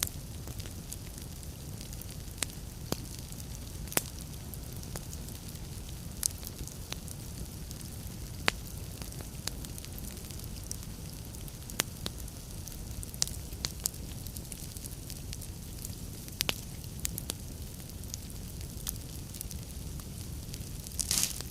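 Wood fire burning in a fireplace: a steady low rumble and hiss with irregular sharp crackles and pops, a brief cluster of louder pops near the end.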